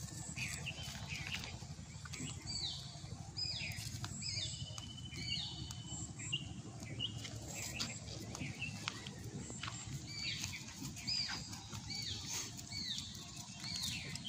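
Birds calling: short, high notes that each drop in pitch, repeated about every half second in two runs of about five, over a steady low rumble.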